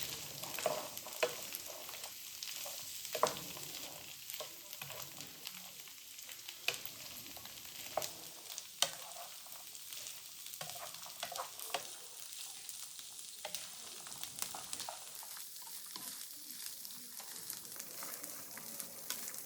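Food sizzling in a frying pan while being stirred, with a steady hiss and a utensil clicking and scraping against the pan every so often.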